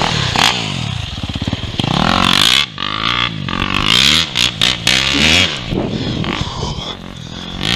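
KTM dirt bike engine revving hard, its pitch rising and falling, then a few sharp knocks about four to five seconds in as the bike goes down. After that the engine sound drops away.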